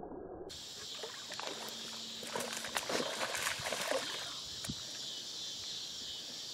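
A bass striking a topwater frog lure and splashing at the surface, a scatter of sharp splashes for about two seconds in the middle, over a steady high chirring of insects.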